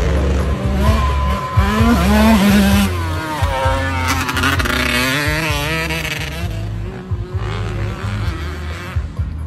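Dirt bike's Kawasaki Ninja 150 two-stroke engine revving hard as the bike passes. The pitch climbs and wavers with the throttle, then fades after about six seconds.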